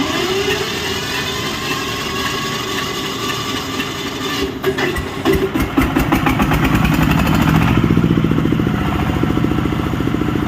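An engine being started with its electric starter: the starter cranks with a rising whine for about four seconds, the engine catches with a run of sharp firing knocks about five seconds in, then runs steadily and louder.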